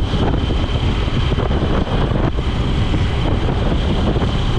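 NXR Bros 160 motorcycle riding at steady speed, with wind rushing over the helmet-camera microphone.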